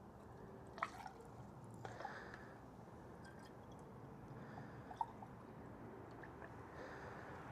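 Faint trickle and drip of coolant as the radiator is topped up, with a few light clicks.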